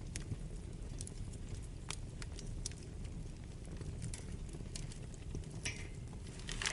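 Wood fire burning in a fireplace: a steady low rumble with irregular sharp crackles and pops, a brief cluster of louder crackles near the end.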